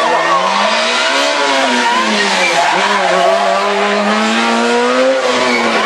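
Rally car engine revving hard through a tight bend, its pitch falling and rising with braking and gear changes and dropping again near the end.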